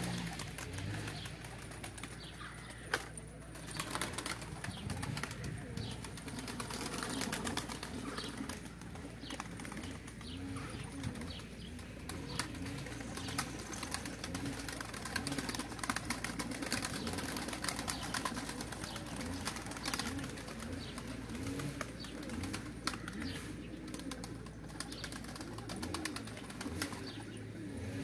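A flock of Van pigeons cooing, with wings flapping as birds land and move about on the ground.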